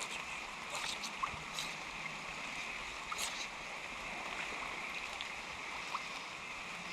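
Creek water running steadily over the riffles, with a few faint short rustles on top.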